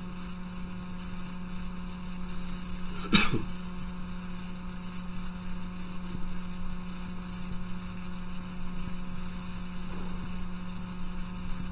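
Steady low electrical hum on a headset microphone's recording, with one brief sharp noise about three seconds in.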